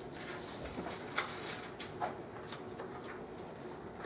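Pages of a Bible being turned, a handful of short rustles over quiet room tone.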